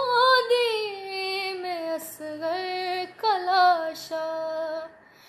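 Female voice singing a noha, a Muharram lament, in long held notes that waver and slide in pitch, broken by short breaths. The voice falls away just before the end.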